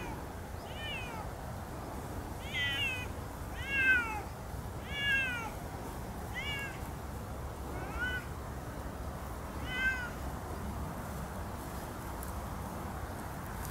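Siamese cats meowing loudly and repeatedly: about eight short calls, each rising then falling in pitch, over the first ten seconds. These are contact calls the cats make to keep together in unfamiliar ground.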